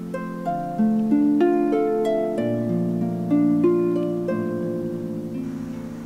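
Solo harp playing a gentle, flowing melody: plucked notes, a few each second, each ringing on so that several overlap.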